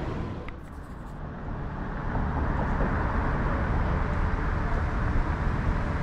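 The murmur of the mall's indoor crowd drops away about half a second in. From about two seconds in, a steady low rumble of city street traffic takes over.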